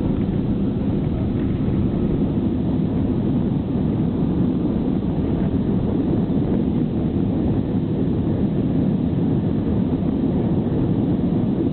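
Steady low rumble of a jet airliner heard from inside the cabin.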